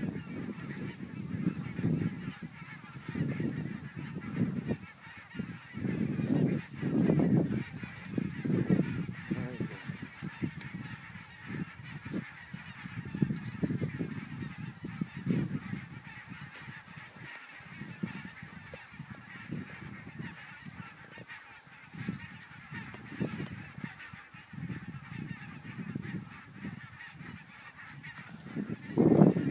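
A chorus of honking calls from large flocks of geese flying overhead in skeins, many birds calling at once without a break. Intermittent low rumbles, most likely wind buffeting the microphone, are the loudest parts, with a strong surge near the end.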